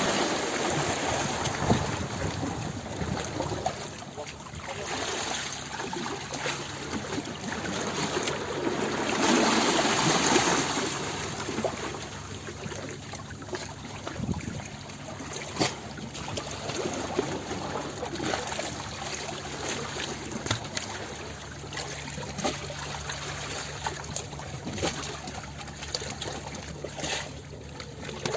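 Running water splashing and trickling in an uneven, continuous rush, swelling louder for a couple of seconds about nine to eleven seconds in.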